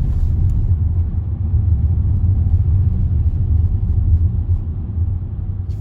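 Low, steady rumble inside a moving Range Rover's cabin: road and engine noise, with wind battering the car.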